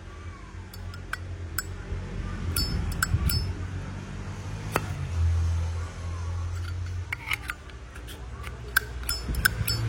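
Zippo lighter being handled, its hinged metal lid flipped open and snapped shut, giving a string of sharp metallic clicks and clacks. It is the lid sound that Zippo owners judge a lighter by, and here it sounds in good order.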